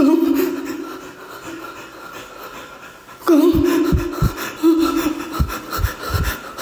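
A man gasping and breathing heavily, with short voiced sounds and several low thumps in the second half.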